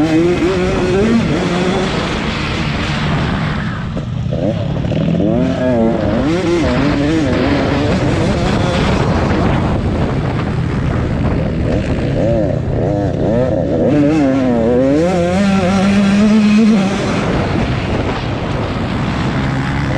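Several motocross motorcycle engines racing on a dirt track, revving up and down over and over as the riders accelerate and back off, the pitches overlapping.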